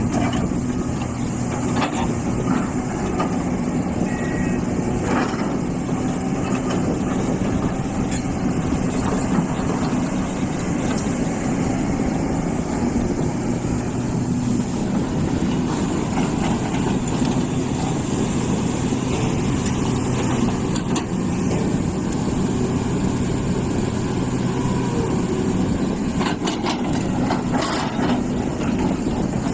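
Hitachi EX450 hydraulic excavator's diesel engine running steadily under work, with a few brief knocks.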